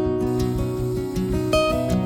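Background music: acoustic guitar strumming and plucking.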